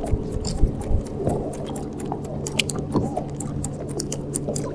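Boat motor running steadily as the boat creeps along, with a low, even hum that settles about a second and a half in and scattered light ticks and splashes over it.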